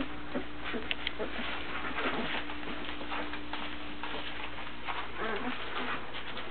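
Newborn chocolate Labrador puppies giving many small squeaks and whimpers while they nurse.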